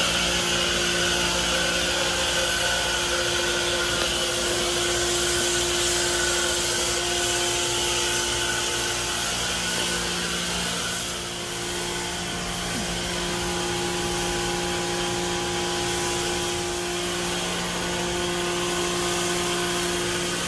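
Foam spraying from a low-pressure foaming system's trigger gun and wand: a steady hiss of the foam jet. Under it is a steady machine hum made of several held tones.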